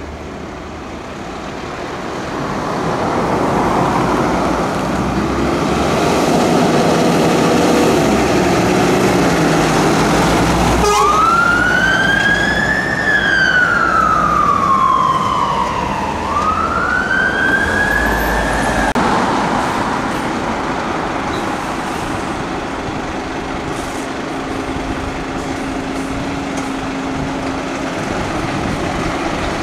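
Scania fire engine's diesel engine pulling away, then its siren sounds a slow rising and falling wail, two sweeps starting about a third of the way in and stopping abruptly. Afterwards diesel fire engines running steadily.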